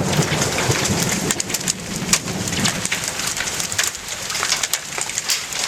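Hail and heavy rain clattering on tin, many sharp ticks of hailstones over a steady rush of rain. A low rumble of thunder runs under it through roughly the first half.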